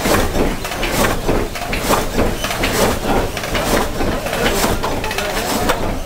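Water-wheel-driven vertical frame saw running, its wooden mechanism and ratchet log-feed knocking in a steady rhythm of about two strokes a second.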